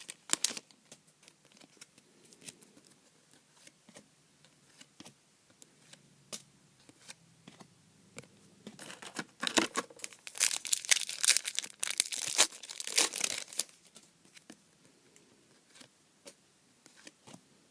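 Trading card pack wrappers being torn open and crinkled, with scattered light clicks and rustles of cards being handled. The tearing and crinkling is loudest in a stretch of a few seconds about halfway through.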